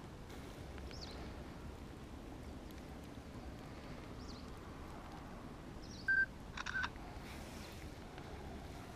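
A Sony Ericsson mobile phone's camera taking a picture: a short beep about six seconds in, followed at once by the electronic shutter sound.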